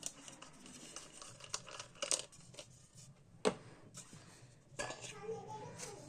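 Scattered metallic clinks and knocks as a mixer grinder's jar and blade assembly are handled, a few separate sharp knocks, the loudest about three and a half seconds in.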